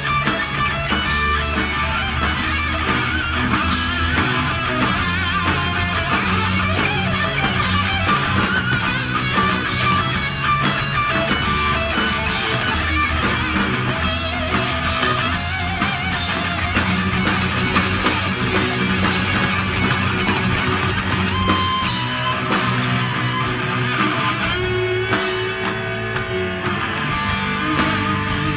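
Heavy metal band playing live, with distorted electric guitars over bass and drums, loud and continuous.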